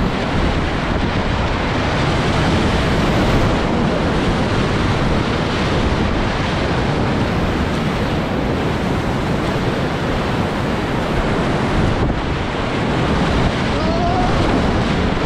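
Whitewater rapids rushing loudly and steadily around a kayak running them, with water churning against the boat and paddle.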